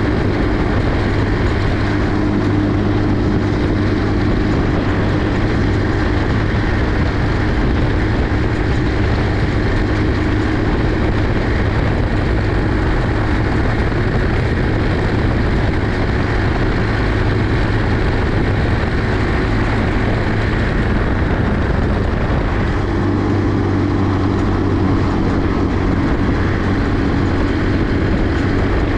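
A 50cc four-wheel buggy's small engine running steadily while riding, with a dense rush of wind and road noise over it. The engine note dips about two-thirds of the way in, then picks up again.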